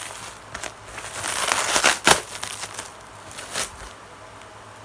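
Plastic parcel packaging crinkling and rustling as it is unwrapped by hand, in uneven bursts with a sharp crackle about two seconds in.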